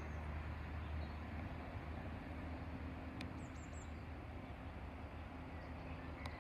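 Low, steady rumble of a Chiltern Railways diesel multiple unit approaching from a distance, with a bird chirping a few times about halfway through.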